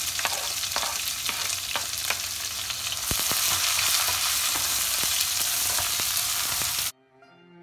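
Sliced red onions sizzling loudly in hot oil in a wok, with the clicks and scrapes of a wooden spatula stirring them. The sizzle grows louder about three seconds in. Near the end it cuts off suddenly and a few notes of music begin.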